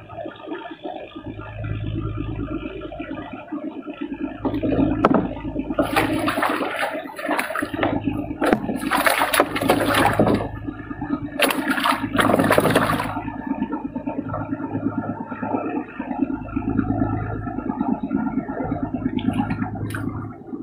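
Water splashing and rushing in several loud surges in the middle, over a steady low hum.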